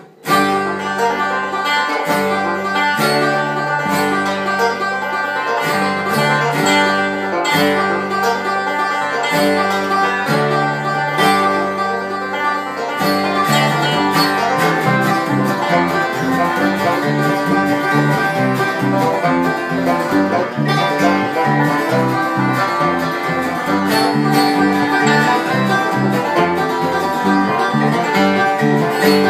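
Bluegrass band playing live, with banjo and acoustic guitar in front over a line of changing low bass notes. The sound fills out about thirteen seconds in.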